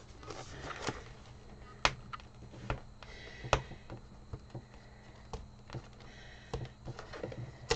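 Tape being picked at and peeled off the taped end of a shipping tube with fingernails: faint scratching and rustling with scattered light clicks and taps.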